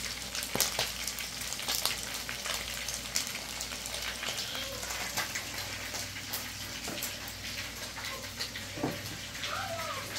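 Whole fish frying in hot oil in a skillet: a steady sizzle with frequent small crackling pops.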